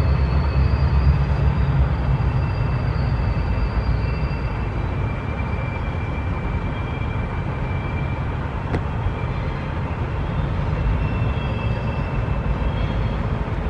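Diesel locomotive running as it pulls a string of tank cars away, its low engine rumble slowly fading, with faint high wheel squeals from the curve. There is one sharp click about nine seconds in.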